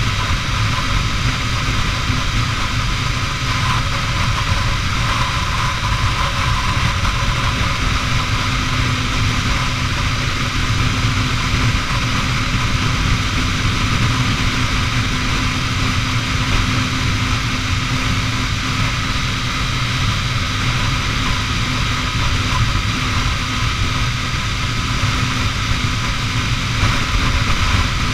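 Honda CBR250R's single-cylinder engine running at a steady freeway cruise, mixed with wind rushing past, heard from the rider's seat. The sound holds even, with no revving or gear changes.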